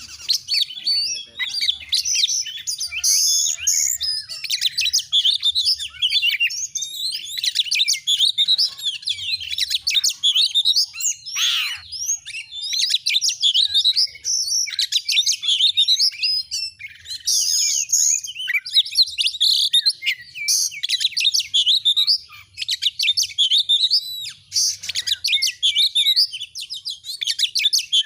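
Oriental magpie-robin (kacer) singing vigorously: long runs of rapid, varied high chirps and whistles, broken by short pauses.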